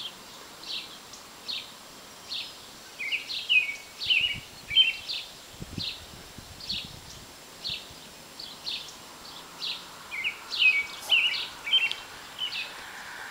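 Small birds chirping, one to two short high chirps a second, with quicker runs of slurred notes a few seconds in and again near the end.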